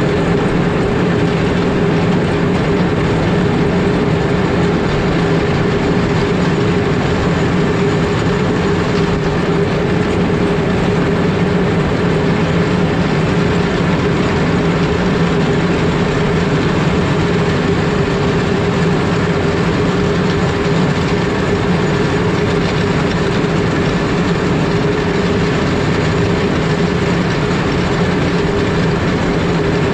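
Caterpillar 140M3 motor grader on the move over an icy road: a constant loud rumble of its engine and running gear with a rattling clatter over it and a steady low hum.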